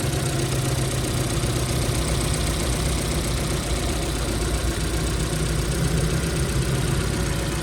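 Chevrolet Cruze 1.8 four-cylinder engine idling steadily and smoothly. The whine of its transmission fault is no longer heard after the repair.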